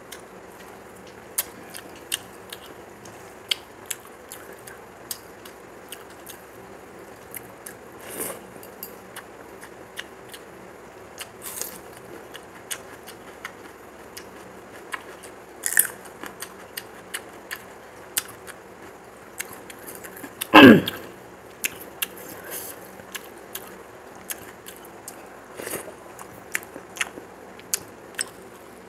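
Close-up mouth sounds of a person eating by hand: chewing and biting with many short sharp clicks. About two-thirds of the way through comes one loud, short sound that falls steeply in pitch.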